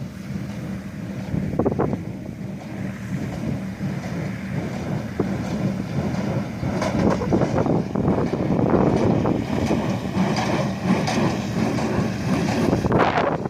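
Matterhorn 55 baler running with the machine that drives it: a steady mechanical hum with irregular clacks and knocks, getting busier about halfway through.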